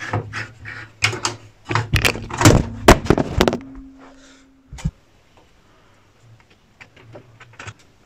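Clicks and metal knocks of a screwdriver working the CPU heatsink screws and the heatsink being handled inside a Dell PowerEdge T310 server case, over a low hum. The knocks stop a little past halfway, a short steady tone follows, and then only a few faint clicks remain.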